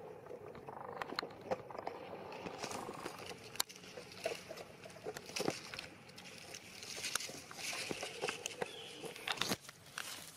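Dry leaf litter crackling and rustling in scattered, uneven clicks as a baby macaque shifts about on it beside its mother.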